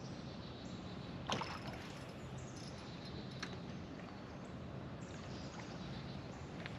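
Steady low background noise around a small boat on the water, with a faint low hum; a sharp knock about a second and a half in and a lighter click a couple of seconds later.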